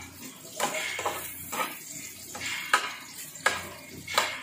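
A spoon scraping and knocking against a frying pan while stirring sliced hotdogs frying in oil, about seven strokes, over a steady sizzle.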